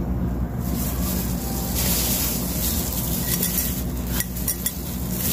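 Rustling handling noise with a few light clicks about four seconds in, as a hand in a plastic glove handles a grain bottle and a small culture cup, over a steady low hum.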